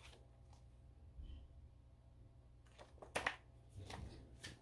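Mostly quiet room tone, with a few brief rustles of the album's packaging and contents being handled in the second half.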